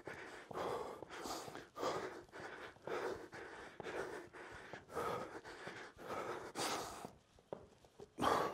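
A man breathing hard and rhythmically from exertion, a short puff about twice a second, with a brief pause near the end.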